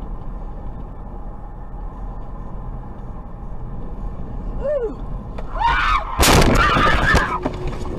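Steady road and engine noise inside a moving car. About six seconds in comes a short rising pitched sound, then a loud crash lasting about a second as the car collides with another car cutting across in front.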